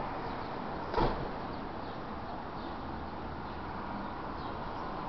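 Steady background hiss of room noise, with one short knock about a second in.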